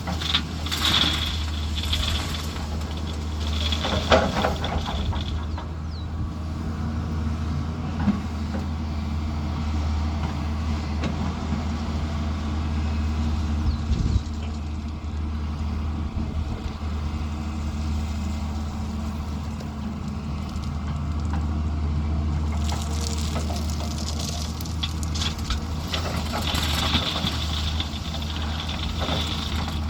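Diesel engine of heavy earthmoving machinery running steadily with a constant low drone. Spells of higher-pitched working clatter come near the start and again near the end, with a few single knocks.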